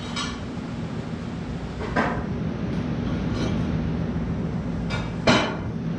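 Metal clinks of an alternator and its homemade steel mounting bracket being handled and test-fitted on the engine: a few sharp clinks with short ringing, the loudest about five seconds in, over a steady low hum.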